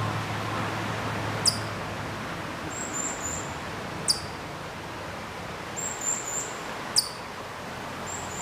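Ezo chipmunk (Siberian chipmunk) calling: three sharp, high-pitched single chirps, each falling in pitch, spaced about two and a half to three seconds apart. Short clusters of fainter, higher chirps fall between them over a steady background hiss.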